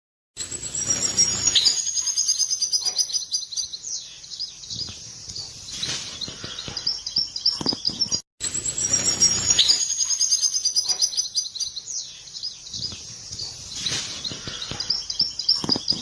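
European goldfinch giving rapid high twittering calls and trills, the 'bitbita' chatter that goldfinch keepers play to excite birds for mating. The same short recording plays twice, with a brief break about eight seconds in.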